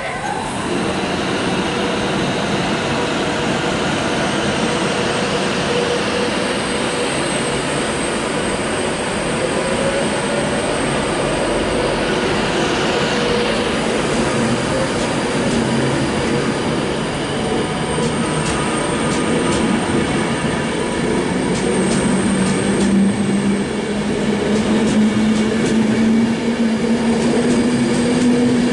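Class 390 Pendolino electric train running along the platform, a steady loud rumble of wheels on rail. Over the last several seconds a motor whine rises slowly in pitch.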